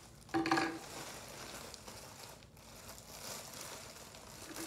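Clear plastic packaging crinkling and rustling as a bagged plush animatronic toy is drawn out of its cardboard box. A short pitched sound stands out about half a second in.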